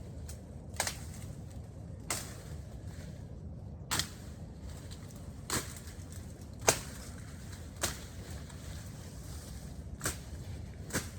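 Machete swinging through bush and grass while clearing land, a sharp swish and cut about every second or two, some strokes louder than others.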